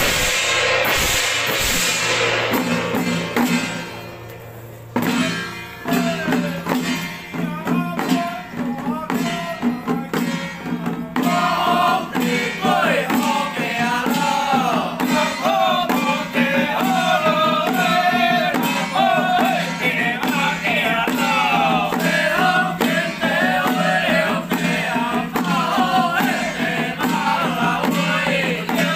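Taiwanese xiaofatuan ritual troupe performing: gongs and hand drums beat for the first few seconds, dip briefly about four seconds in, then take up a steady beat again. From about eleven seconds in, group chanting joins over the percussion and carries on.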